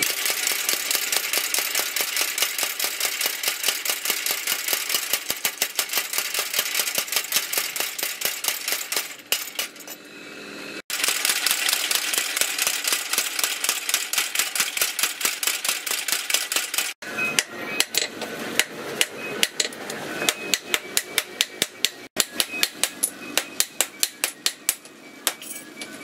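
Hand hammers striking red-hot steel on an anvil as axe heads are forged: rapid metallic blows, several a second, in a run of clips that break off suddenly where the footage is cut.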